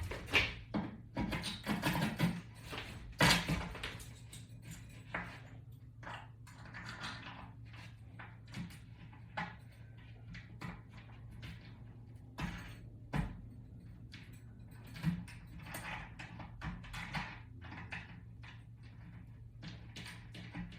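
Irregular clicks and light knocks of toggle bolts, butterfly wings and washers being handled and fitted onto a wall-mount bracket, busiest in the first few seconds.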